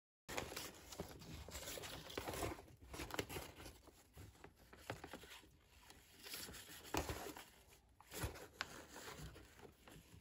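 Electrical cable being pulled hand over hand through conduit: an uneven scraping and rustling as the wire slides through, with a few sharp clicks and knocks about 3, 7 and 8 seconds in.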